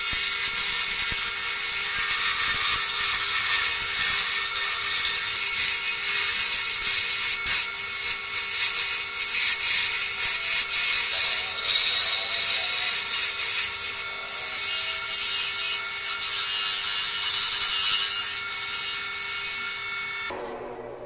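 Small benchtop wood lathe running with a steady motor whine while a flat turning tool cuts a spinning wooden handle blank, a scraping, hissing cut that swells and eases as the tool works. Near the end the cutting stops and only the fading hum of the lathe is left.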